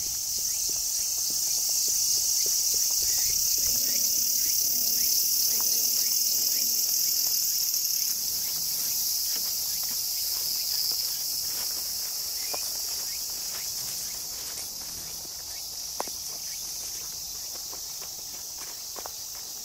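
A dense chorus of summer insects: a steady high-pitched chirring that grows somewhat quieter in the second half, with a few faint clicks.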